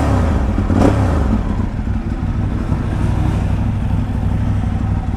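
Ducati 848's L-twin engine idling just after being started, with a brief rev about a second in.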